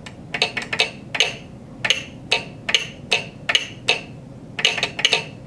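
Telegraph key and sounder in a wooden resonator box clicking out SOS in Morse code: a quick cluster of clicks, a slower, evenly spaced run, then another quick cluster.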